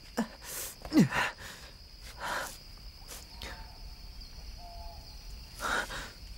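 Outdoor woodland ambience: a steady high insect drone with a few faint short bird chirps. Several brief rushing sounds break in, with a low falling swoop about a second in as the loudest.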